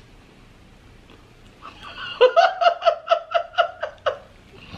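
A woman laughing: a run of about ten quick, evenly spaced "ha" pulses that starts about two seconds in and lasts about two seconds.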